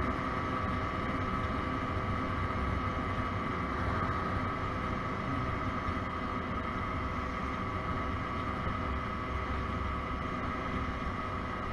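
Partly derestricted 50 cc Motobi BS1 scooter engine running at a steady cruise around 63 km/h, a constant high engine tone with no change in revs, over a low rushing of wind and road noise.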